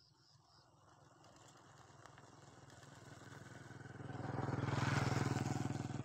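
A vehicle's engine drawing near, growing steadily louder to a peak about five seconds in, then cutting off abruptly.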